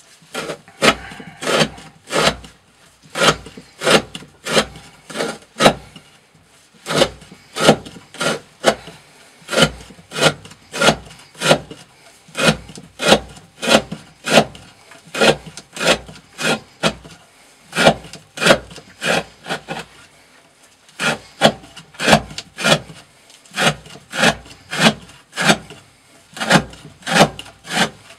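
A knife with a CPM S35VN steel blade shaving curls off a wooden stick in short repeated strokes, about two a second, with a brief pause about three quarters of the way through.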